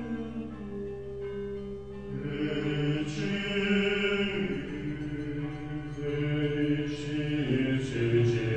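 Orthodox liturgical chant: several voices sing long, held notes, with lower voices joining about two seconds in.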